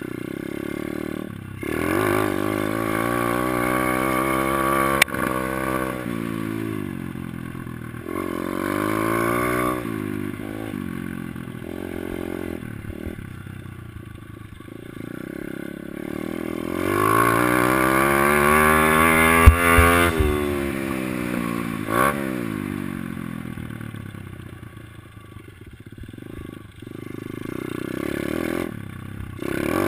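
Kawasaki KLX110L's small single-cylinder four-stroke engine revving up and falling off again and again as the bike is ridden around a dirt track, heard from the rider's helmet. Sharp knocks about five seconds in and again around twenty seconds.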